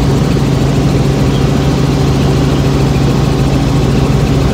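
Helicopter in flight heard from inside the cabin: a loud, steady drone of the engine and rotor, with a strong low hum that holds throughout.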